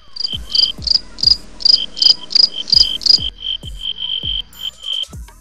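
Crickets sound effect over a beat: rapid high chirps repeating several times a second, with a deep, falling kick drum about every 0.4 s. It stops shortly before the end.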